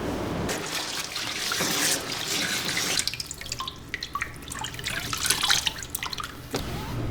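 Running water during a cat's bath: a steady rush of water for the first few seconds, then irregular splashing and dripping.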